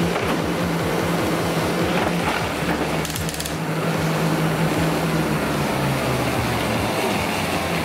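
Treadmill motor humming steadily with the belt running, a Lego Technic truck's electric motors driving on it. The hum drops in pitch about six seconds in as the treadmill is stopped.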